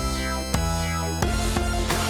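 Electronic background music with a heavy bass line and sharp drum hits, new notes every half second or so.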